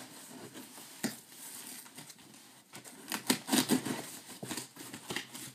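Knife slicing through packing tape on a cardboard box: irregular scraping, crackling tape and small clicks of the blade on cardboard, with louder strokes from about three seconds in.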